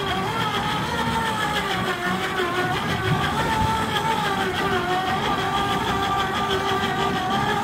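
A motor running steadily, with a whine that wavers slowly in pitch.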